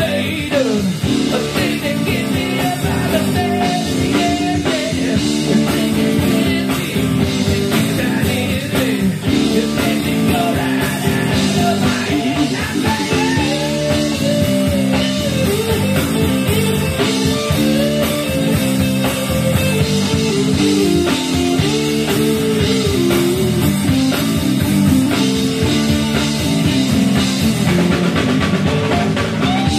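Rock band playing live: electric guitar, bass and drums with a steady beat, and a lead melody bending up and down in pitch over them.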